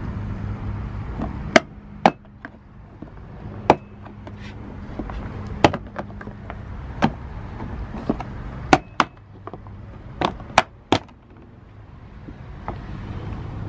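About a dozen sharp clicks and knocks, spaced irregularly, as plastic trim clips are pried up with a screwdriver. A low steady hum runs underneath.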